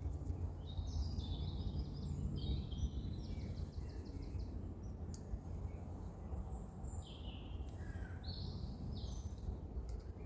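Small songbirds singing: bursts of quick high chirps and a fast trill about a second in, more chirps near the end, over a steady low rumble of outdoor background noise.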